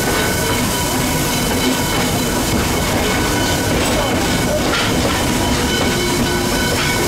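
Steam train under way, heard from the car just behind the tender of a Pennsylvania Railroad B4 0-6-0 steam locomotive: a steady rumble and clatter of wheels on the rails.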